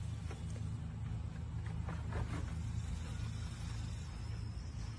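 A steady low hum with a few faint knocks of plastic milk crates underfoot as a man climbs onto a stacked crate pyramid.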